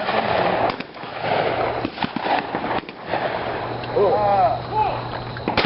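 Shotgun fire at a clay-target range: several sharp reports, the sharpest near the end, over a steady outdoor noise and some voices.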